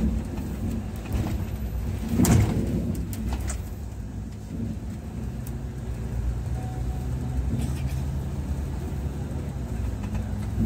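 Volvo B11R six-cylinder diesel engine of a multi-axle coach running steadily under way, heard from inside the coach with road noise. About two seconds in there is one brief loud thump.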